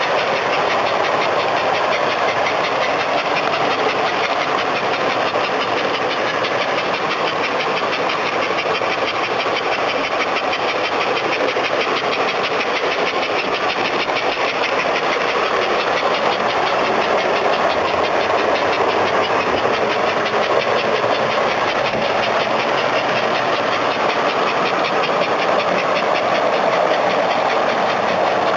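S gauge model trains, among them a custom-built NYC 4-8-2 Mohawk steam locomotive, running on the layout: a steady, loud running noise of motors and wheels on the track.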